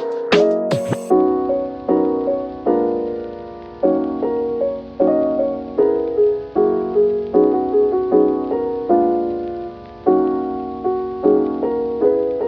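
Background music: a soft piano playing slow, repeated chords that each fade away, with the beat dropping out about a second in.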